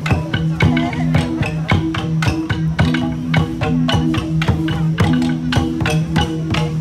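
Central Highlands gong ensemble (cồng chiêng) playing a folk dance piece. Several gongs of different pitches ring in a repeating interlocking pattern, with quick sharp strikes over the sustained tones.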